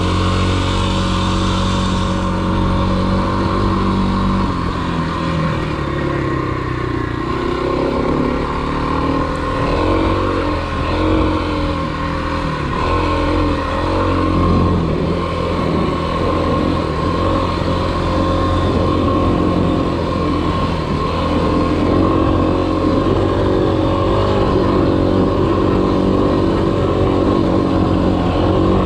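2021 Kawasaki KLX300's single-cylinder four-stroke engine running under load while being ridden off-road. It holds a steady pitch for the first few seconds, then rises and falls over and over as the throttle is worked through whoops and soft sand.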